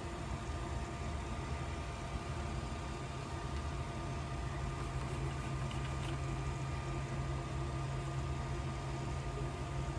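Steady low mechanical hum, like a fan or appliance running, with a few faint light clicks about five to six seconds in.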